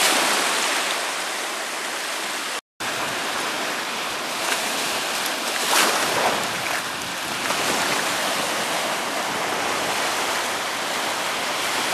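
Surf washing up the beach and swirling around small metal levee boxes: a steady rush of water that swells and ebbs. It cuts out for an instant about two and a half seconds in.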